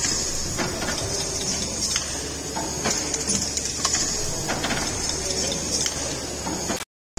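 Irregular mechanical ticks and clicks over a steady hiss from the 1914 Ashton Frost compound steam pumping engine at work, its brass lubricators and mechanism clicking.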